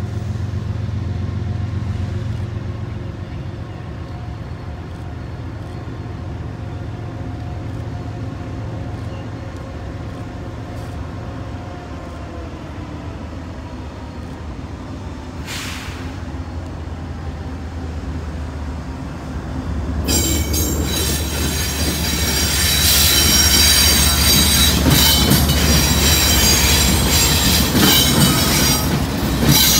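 Union Pacific diesel-electric locomotives leading a freight train approach with a steady low engine rumble. About 20 seconds in, the lead locomotive passes close and it turns much louder, with a rush of wheel-on-rail noise and high-pitched squealing from the wheels.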